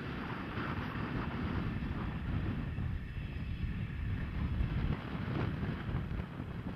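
Two-car KiHa 40/48 diesel railcar train running along the line: a steady low rumble of engine and wheels, with wind buffeting the microphone.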